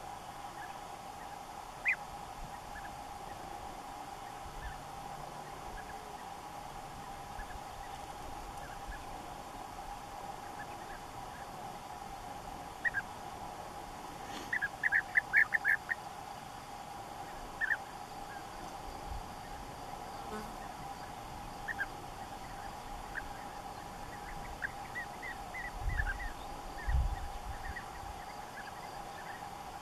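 European bee-eaters calling: short, scattered trilled calls, with a quick run of about six about halfway through and another cluster near the end.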